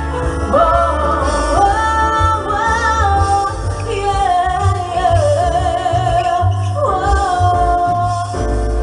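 Loud music with a sung melody over a pulsing bass beat.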